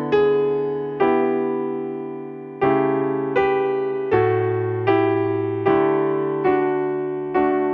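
Slow solo piano music: full chords struck about once a second, each left to ring and fade before the next.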